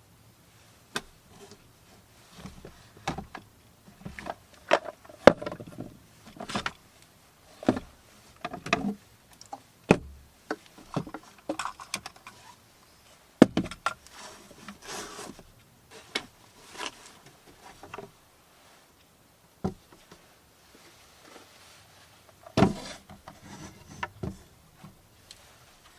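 Irregular handling noises: knocks, clicks and rubbing rustles of objects being moved and set down, with a few sharper knocks standing out.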